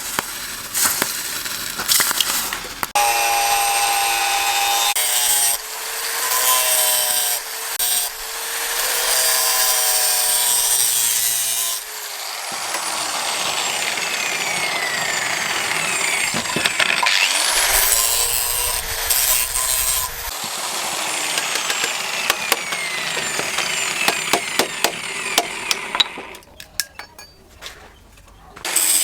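Electric power tool grinding at the workpiece, its motor whine sinking about twelve seconds in as it winds down and rising again a few seconds later as it starts back up; scattered light taps near the end.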